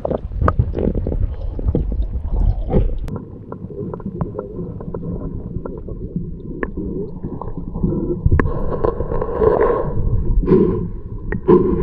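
Muffled underwater sound picked up by a submerged camera: water gurgling and sloshing with a low rumble and many sharp clicks and knocks. A faint steady tone runs under it from about four seconds in.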